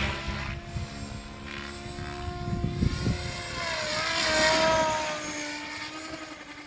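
Motor and propeller of a radio-controlled model aircraft flying overhead, a steady whine that swells and bends in pitch as it passes close about four to five seconds in, then fades.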